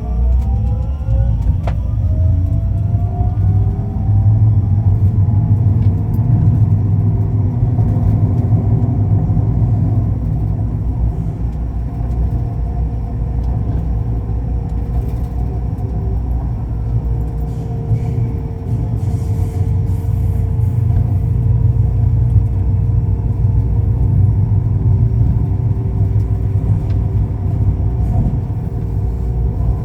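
Ui-Sinseol light-rail train running between stations, heard from inside the car. There is a loud, steady rumble, and the electric motor's whine climbs in pitch over the first few seconds as the train picks up speed, then holds level.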